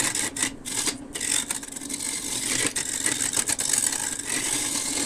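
Wood lathe running while a turning tool cuts a spinning driftwood burl: a steady motor hum under a scraping hiss of the tool on the wood, which comes and goes in short passes.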